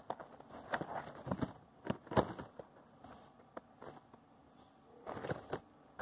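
Irregular rustling and crackling with sharp clicks: movement and handling noise from someone filming close in among leaves and twigs.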